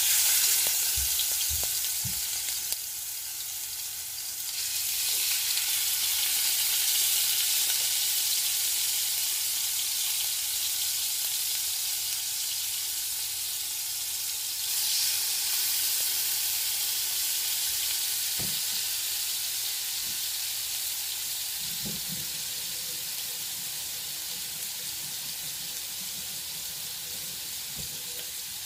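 Marinated goat chops sizzling loudly in oil as they are laid onto a hot iron tawa. The sizzle starts suddenly, swells twice as more pieces go in, then slowly dies down as they shallow-fry, with a few soft knocks near the end.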